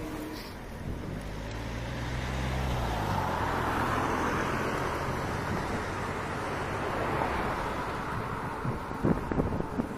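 A car passing close by on the road alongside: low engine hum, then engine and tyre noise swelling about three to five seconds in and slowly fading, over steady street noise. A few sharp knocks near the end.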